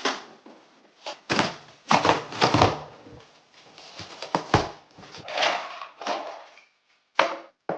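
Flat-pack Billy bookcase parts being handled: a string of irregular knocks and thuds, with scraping and rustling between them.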